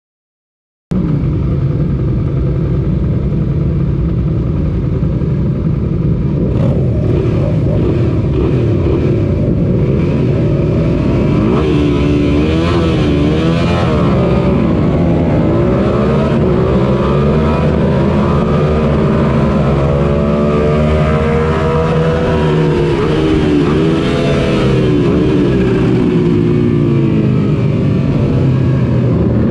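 Suzuki SV650's 645 cc V-twin engine heard from on board the race bike. It comes in loudly about a second in, then revs rise and fall again and again with the gear changes.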